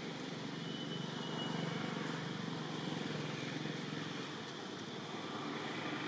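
Steady low hum of a distant engine over an even background hiss, a little stronger in the middle.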